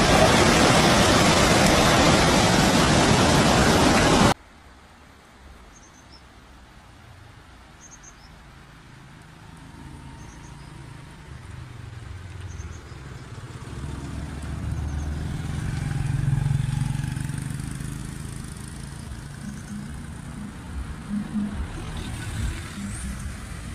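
Muddy floodwater rushing in a loud, steady torrent through a street, ending abruptly about four seconds in. It is followed by a much quieter low rumble that swells and then eases off.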